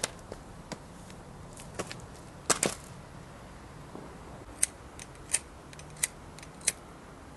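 Footsteps on a pavement coming to a stop, then a louder double knock. After that come four sharp clicks about two-thirds of a second apart: a cigarette lighter being flicked to light a cigarette.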